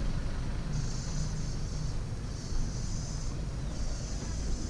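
Low, steady engine rumble with wind noise on the microphone.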